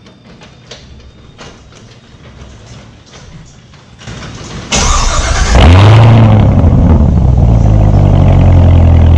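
Faint clicks and knocks, then about halfway through the 2019 Corvette ZR1's supercharged 6.2-litre LT5 V8 starts up: it catches suddenly, flares up in revs and settles into a loud, steady idle.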